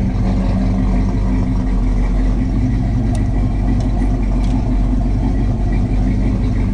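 1968 Pontiac GTO's rebuilt original V8 idling steadily, freshly started after sitting about six months. A few faint clicks come through in the middle.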